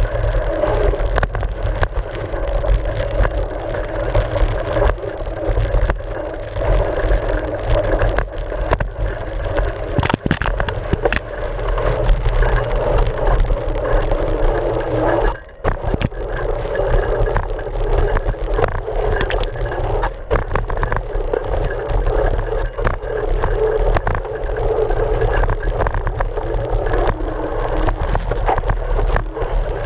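Mountain bike riding on a dirt trail, heard through a GoPro housing mounted on the front fork: a steady, muffled rumble of the knobby front tyre rolling over dirt, with many small knocks and rattles from bumps. The sound drops out briefly about halfway through.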